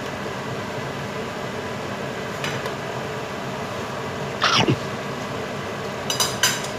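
Steady hiss from the stove with a pot of stir-fry cooking on it. About two-thirds of the way in there is a short squeak that falls sharply in pitch, and near the end a few quick metal clinks against the stainless steel pot.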